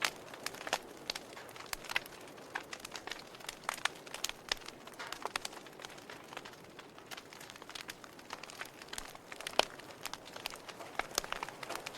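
Wood fire crackling in a fireplace: irregular sharp pops and snaps over a soft hiss, with one louder pop about nine and a half seconds in.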